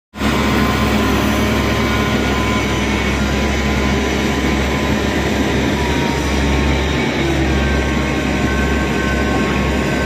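Caterpillar 140H motor grader's diesel engine running steadily close by, together with a dump truck's engine: a continuous heavy-machinery drone with a faint whine.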